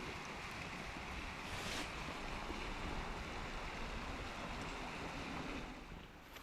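Steady rush of a high, swollen creek, with wind buffeting the microphone in a low, uneven rumble. The rush drops off shortly before the end.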